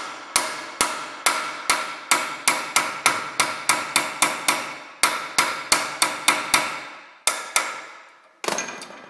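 Hammer blows on a crash-bent steel motorcycle saddlebag mount clamped in a bench vise, a steady run of about twenty sharp metallic strikes, two to three a second, each with a short ring. The blows are straightening and reshaping the twisted bracket. They pause briefly near the end before a final few strikes.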